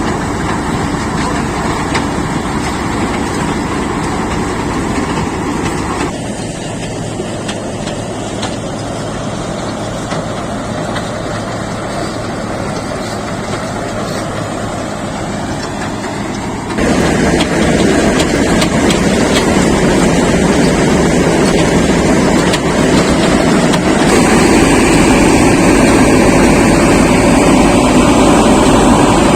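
Combine harvester's engine and threshing machinery running steadily while harvesting sunflowers, a dense mechanical din. Three times it jumps abruptly in loudness and tone, the last two times getting louder.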